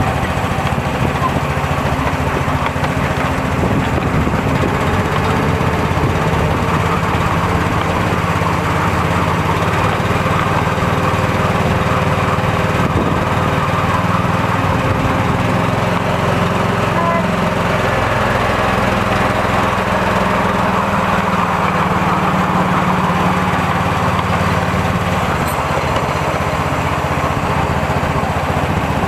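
Small engine of a miniature railway locomotive running steadily as it pulls the train along the track.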